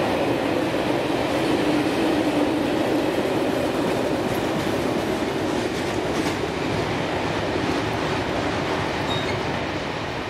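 Freight train wagons rolling past at speed in a steady rumble, with a few wheel clacks over the rail joints. The noise eases slowly as the end of the train clears the crossing.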